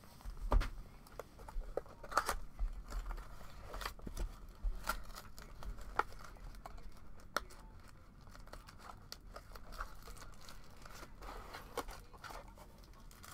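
A sealed Bowman's Best trading-card hobby box being opened by hand: plastic shrink-wrap crinkling and tearing, and cardboard and a paper insert rustling and sliding, with many scattered short ticks and scrapes.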